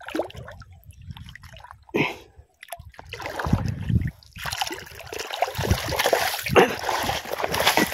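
Water splashing in short, broken bursts, turning into heavier continuous splashing about halfway through.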